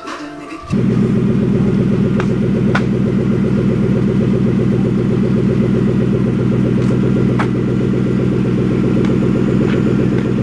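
Lexus LS430's V8 engine idling steadily, a loud, even low rumble that starts suddenly about a second in.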